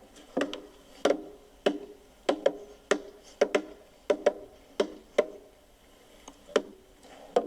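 Hammer blows on building work: a quick, uneven run of sharp strikes, about two a second, each with a short ring, with a pause a little past the middle.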